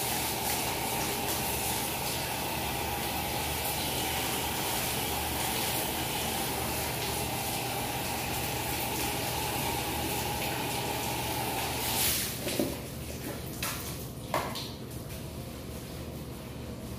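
Handheld shower hose spraying water onto a person's face and head, a steady rush that stops about twelve seconds in, followed by a few short, sharp sounds.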